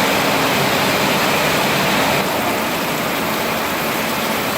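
Heavy rain pouring down: a dense, steady hiss of water that eases slightly a little over two seconds in.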